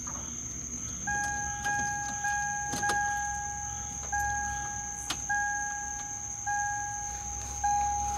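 Pickup truck's warning chime bonging over and over with the driver's door open and the key in the ignition: single bell-like tones that fade, starting about a second in, at first about twice a second and then about once a second. A steady high chirring of crickets goes on underneath, and there are a couple of sharp clicks.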